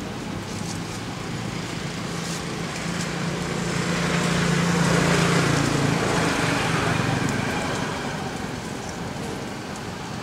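A motor vehicle passing by: a steady engine hum with road noise that grows to its loudest about halfway through, then fades away.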